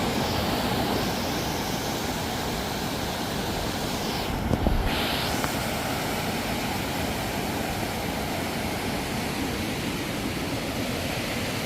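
Steady rushing of a fast-moving river, a constant roar of water, with a brief low rumble about halfway through.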